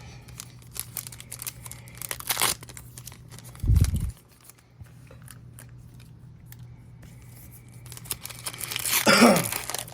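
A trading-card pack wrapper being torn open and crinkled by hand: a run of crackles and rustles, a dull low thump about four seconds in, and a louder burst of crinkling near the end. A faint steady low hum runs underneath.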